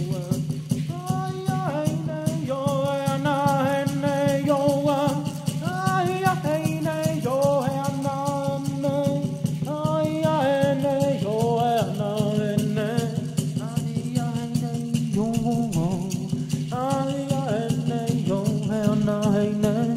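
Chanted singing, a melody of held, wavering notes, over a continuously, quickly shaken rattle and a steady low drone.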